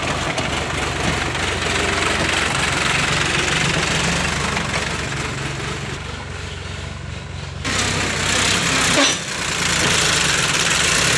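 Tractor diesel engine running with a steady low beat. The sound changes abruptly about six and about eight seconds in, with a brief louder peak about nine seconds in.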